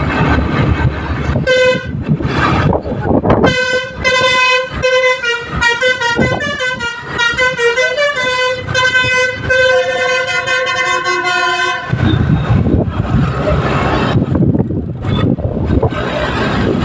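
Basuri musical bus horn playing a 'telolet' tune: a short note about a second and a half in, then a run of changing tones for about eight seconds. Vehicle noise comes before the tune and after it cuts off.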